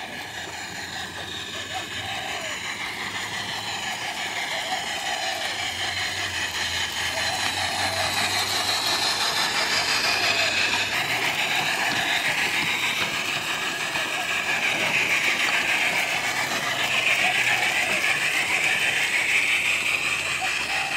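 Large-scale garden railway train of a model Yx-class steam locomotive running along the track: a steady hiss of wheels on rail that grows gradually louder.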